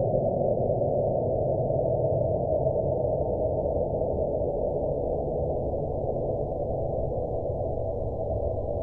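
Sped-up seismic recording of the 2012 Indian Ocean earthquakes: ground motion from seismometers across Ireland, accelerated 9600 times into audible sound, heard as a dense, churning low rumble with no high end, slowly fading.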